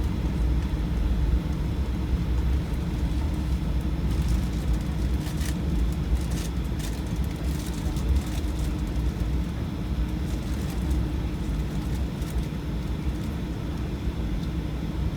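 Aircraft cabin noise in flight: a steady low rumble of engines and airflow with a faint steady whine, and a few faint light clicks through the middle.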